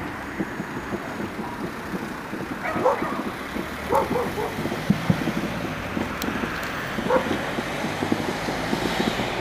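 A dog barking a few times, short single barks, over a continuous low crackle and rumble of distant fireworks.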